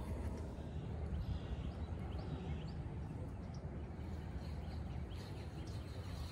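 Outdoor ambience: a steady low rumble with faint, short chirping bird calls, several in the first three seconds and a few more later.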